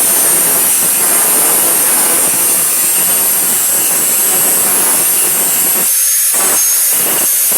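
A loud, steady, high-pitched rushing whine of a power tool working steel plate. Near the end the lower part of the sound cuts out briefly twice.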